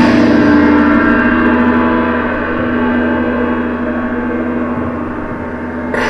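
A struck metallic tone, heard as part of the performance music, with many steady overtones ringing on and slowly fading. A second stroke comes near the end.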